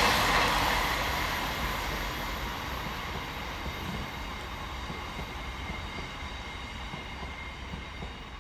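Passing passenger trains' rolling noise fading steadily away as they recede along the line, leaving a thin steady high whine.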